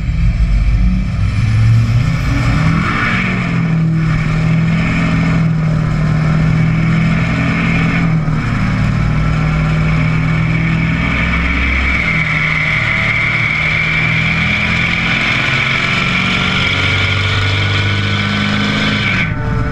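Duramax turbo-diesel pickup's exhaust from an axle-dump pipe while driving, heard close under the truck, the engine note stepping up and down in pitch as it pulls and eases off, over road and wind noise. A thin high whine rises in from about halfway.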